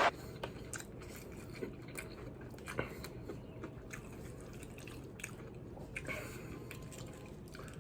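Close-miked chewing and mouth sounds: soft smacks and small crunches of someone eating fried chicken tenders and coleslaw.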